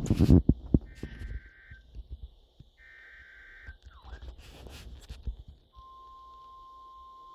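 Emergency Alert System SAME header: three short two-tone data bursts, each under a second, about a second apart. A steady attention tone then starts near the end. Loud knocks and thumps come at the very start.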